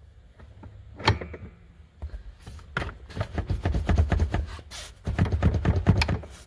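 Aftermarket rear seat lock on a Tesla Model 3 being worked: a sharp click about a second in, then runs of rapid clicking and rattling from the lock and the seat-back latch.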